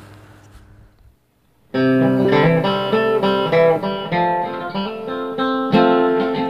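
Acoustic guitar music with plucked and strummed notes starts suddenly about two seconds in, after faint outdoor ambience fades into a brief silence.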